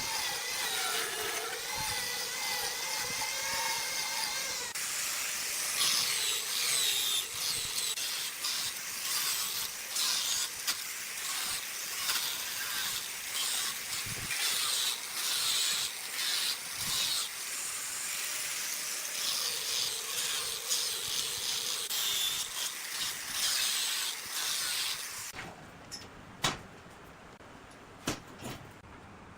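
A power tool working wood: a steady, hissing cutting noise, with a wavering whine in the first few seconds. It stops about 25 seconds in, leaving a few sharp knocks.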